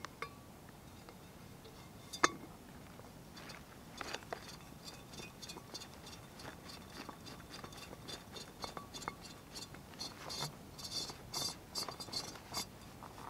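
Fuel pump of a SOTO Stormbreaker multi-fuel stove being fitted into its aluminium fuel bottle and screwed down: one sharp metal click about two seconds in, then a run of small clicks and scrapes that grows busier and louder near the end.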